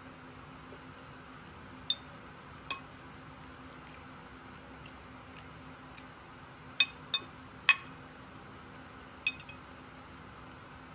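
Metal fork clinking against a plate while picking up baked pasta: about six short, ringing clinks, two in the first few seconds, a quick run of three a little past the middle, and one more near the end, over a faint steady hum.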